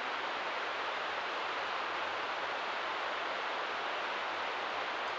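Steady, unbroken rushing noise at an even level, like moving air or water.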